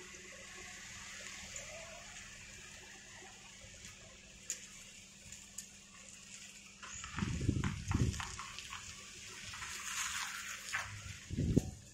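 Scattered sharp metallic clicks and clinks from rope-access climbing hardware as the climber works on the tower. The clicks grow busier in the second half and come with a few dull low thumps, about seven to eight seconds in and again near the end, over a steady low hum.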